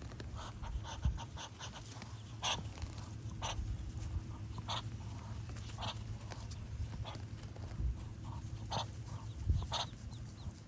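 Ducklings peeping: short sharp calls about once a second, with quieter ones between, over a steady low rumble.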